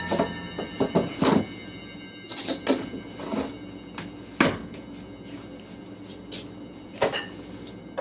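Kitchen handling sounds: a series of separate knocks, thuds and clinks as things are moved and set down on a counter, with a sharp knock about four seconds in and another near the end, over quiet tense background music.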